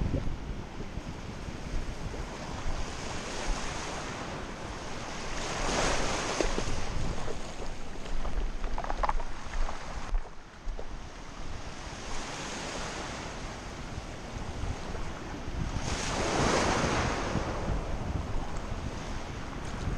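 Small surf waves washing in over a shallow sandy beach, with wind rushing over the microphone. The wash swells up twice, about six seconds in and again around sixteen seconds.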